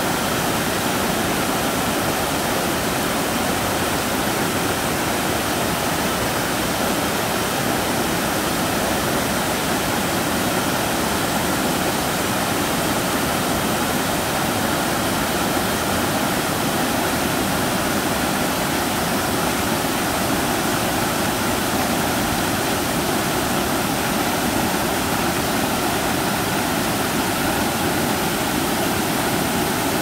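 Waterfall pouring over a broad rock slab: a steady, loud rush of falling white water with no let-up.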